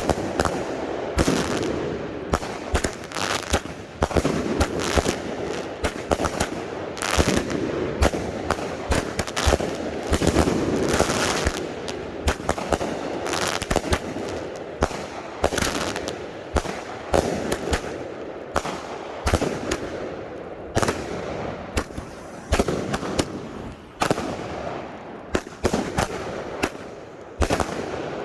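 Fireworks cakes firing: a rapid, irregular run of sharp bangs and pops, several a second, over continuous crackling.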